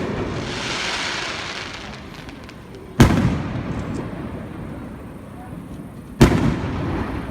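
Aerial fireworks bursting: a crackling hiss from a burst fades over the first two seconds, then two loud booms about three seconds apart, each trailing off.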